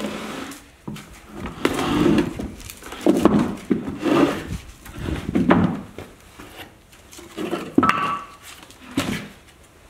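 Wooden lumber frame scraping, creaking and knocking against a tree-stump section as it is shoved and shifted by hand, in a string of short bursts about a second apart.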